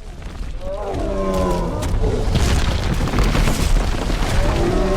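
Brontosaurus stampede sound effect: a deep, steady rumble of heavy footfalls that builds over the first second. Pitched bellowing dinosaur calls sound over it about a second in and again near the end.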